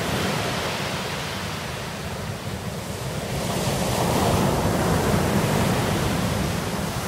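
Sea waves breaking and washing up a black pebble beach: a steady rush of surf that swells about four seconds in as a wave crashes.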